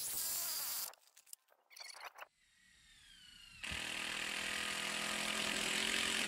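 A DeWalt cordless drill with a step bit bores through PVC pipe for about a second. A little past halfway a steady machine drone with a rushing noise starts suddenly and runs on, after a fainter whine that falls in pitch.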